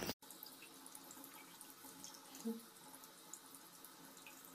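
Faint trickle of water from a bathroom sink faucet, with one brief soft sound about two and a half seconds in.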